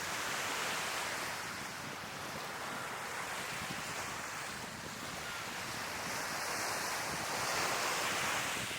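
Sea waves washing onto the shore in a steady rush, swelling about half a second in and again near the end, with wind noise on the microphone.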